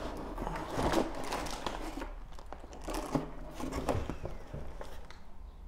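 Cardboard and packaging rustling and scraping, with small clicks, as a boxed combat ration is handled and lifted out of a cardboard shipping carton.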